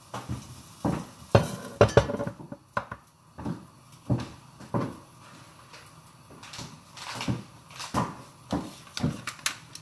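Ingredient bottles and kitchenware being set down on a kitchen counter: a run of clinks and knocks, the loudest about one and a half to two seconds in.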